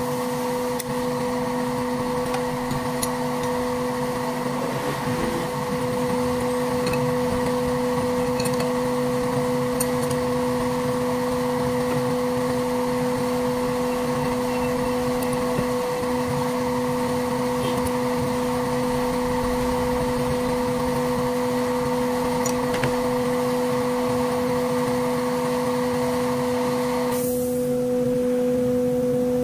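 Steady electric-motor hum with a fixed, pitched drone from the CNC router's running equipment while the spindle is stopped, with a few faint metal clicks from spanners on the collet during a bit change. Some of the higher hiss drops out near the end.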